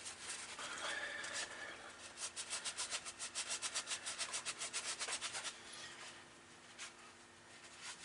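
Brisk back-and-forth hand rubbing on a small machined brass part, a quick even rhythm of about six strokes a second for around three seconds, with slower, fainter rubbing before and after.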